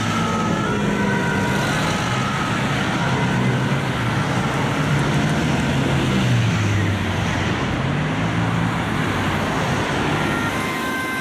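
Dense city traffic with engines running, one of them revving up around the middle. A two-tone emergency siren fades out in the first second or so, and a two-tone siren starts up again near the end.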